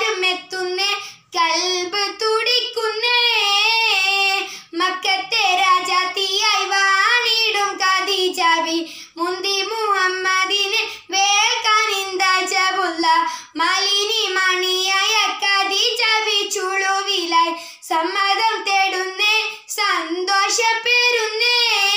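A girl singing a Malayalam Mappila song (ishal) solo and unaccompanied. Phrases of two to three seconds carry wavering held notes and are broken by short breaths.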